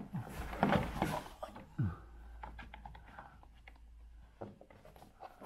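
Hands working plastic trim and a wiring connector in corrugated conduit behind a car's rear side panel: rubbing and scraping in the first two seconds, then faint scattered small clicks and ticks.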